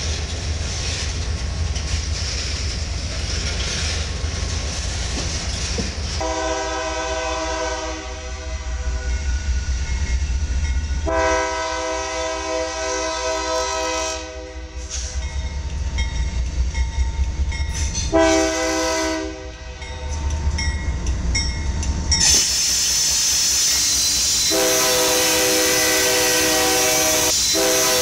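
Low rumble of a passing freight train, then a diesel locomotive's multi-tone air horn sounding the grade-crossing signal: two long blasts, a short one, and a last long one that carries on as the BNSF locomotive passes close, its engine and wheels loud.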